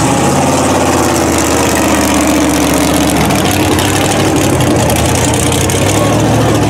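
Supercharged LQ4 V8 of a giant tractor-tired Jeep running at low engine speed, a steady engine note whose pitch sags slightly over the first few seconds and then holds.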